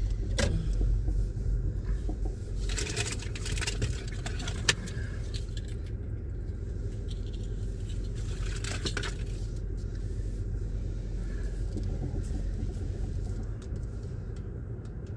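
Car running at low speed, heard from inside the cabin as a steady low rumble, with a few sharp clicks and brief rattles.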